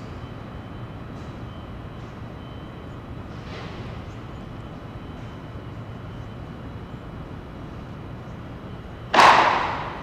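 Construction site ambience: a steady low background rumble, broken about nine seconds in by one loud bang that dies away in under a second.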